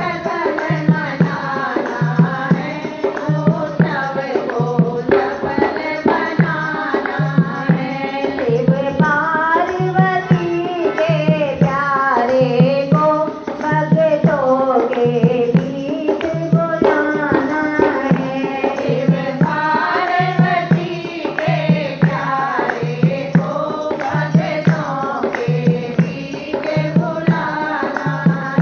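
Hindi devotional bhajan to Ganesh, sung in a folk style over a steady drum beat.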